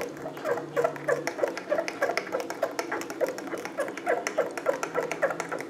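Spoon stirring fast in a ceramic mug of instant latte, scraping the mug with a rhythmic squeak and clink about three or four times a second.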